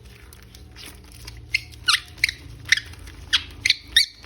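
Short plastic squeaks, about seven in quick succession from a second and a half in, each one gliding in pitch, as a plastic action figure is handled.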